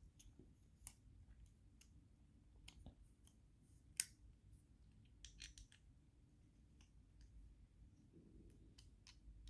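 Faint, scattered clicks and taps of small metal knife parts and a screwdriver being handled. The sharpest tap comes about four seconds in, with a quick run of small clicks just after.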